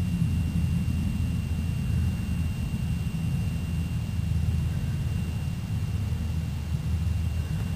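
A steady low rumble with a faint, steady high-pitched tone above it.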